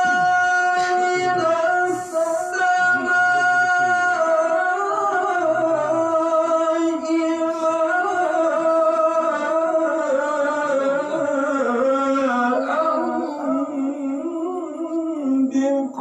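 Male Quran reciter chanting in a high voice: one long held note, then wavering, ornamented melodic phrases that sink lower near the end.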